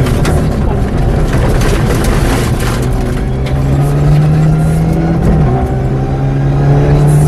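Mitsubishi Lancer Evolution VI rally car's turbocharged four-cylinder engine running hard at stage speed, heard from inside the cabin, its pitch rising and dipping with the throttle, over loud road and tyre noise.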